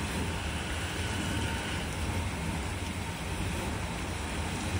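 Steady rumble and hiss of an electric commuter train creeping through an automatic train-washing plant as it is washed.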